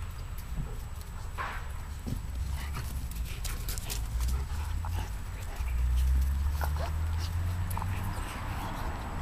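German Shepherd puppies play-fighting with an adult German Shepherd on grass: a few short high puppy whimpers among scuffling and rustling, over a low rumble that swells about six seconds in.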